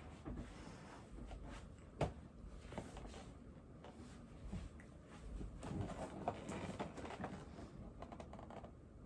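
Faint handling noise from a cardboard game box being gripped and moved by hand: light taps and rustling, with a sharper click about two seconds in and a busier stretch of crackling in the second half.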